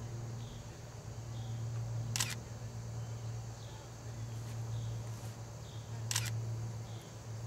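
Two camera shutter clicks about four seconds apart, over a steady low hum.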